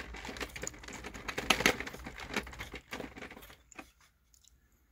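Hand-spun rotor of a 3D-printed dual-cone pulse motor spinning down: a fast rattle of ticks that slows, thins out and dies away about four seconds in.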